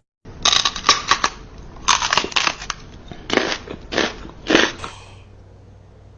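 A dog biting and chewing something crunchy: loud crunches in quick bursts that stop about five seconds in.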